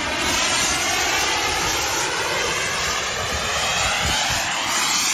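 Fighter jet flying low overhead: a loud, steady jet roar with a slowly sweeping, phasing whoosh that rises in pitch toward the end as the aircraft passes.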